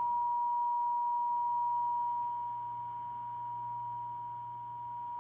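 A steady, high test tone with a low hum beneath it, played through the speaker of a 1960s General Electric C-510a tube clock radio fed from a signal generator during RF trimmer alignment. The tone and hum grow somewhat quieter about two seconds in as a trimmer is adjusted.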